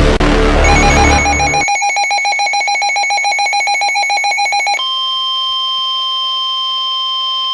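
Rapid electronic alert beeping from a weather radio, with a low rumble under it for the first second and a half. About five seconds in it gives way to the steady 1050 Hz warning alarm tone of NOAA Weather Radio, the signal that a warning message follows.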